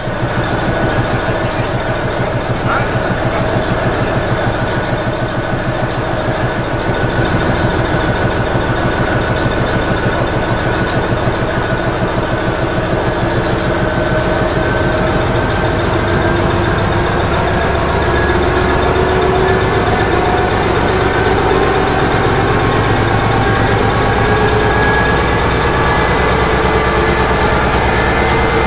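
10D100 two-stroke opposed-piston diesel engine of a 2TE10M locomotive running, heard inside its engine room. Its speed picks up gradually over the second half, the engine note rising and growing slightly louder as the controller is moved to a higher position.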